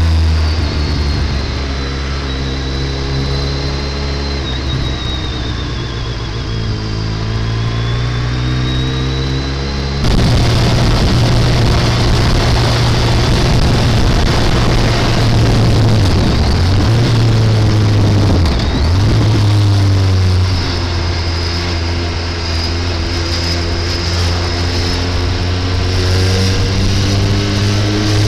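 Motorcycle engine running through traffic, its pitch rising and falling with the revs, with wind rumble on the microphone. About ten seconds in the sound abruptly becomes louder and rougher.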